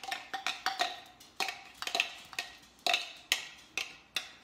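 A utensil knocking and scraping against the plastic bowl of a mini food chopper, about three sharp taps a second with a short ring after each, as thick sauce is scraped out of it.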